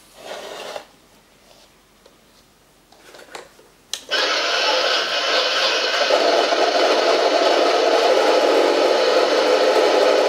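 Radio-controlled model tank's engine sound switching on with a click about four seconds in, then running steadily and loudly with a buzzing, machine-like tone. Before that there is a short rustling burst at the start and a few faint ticks.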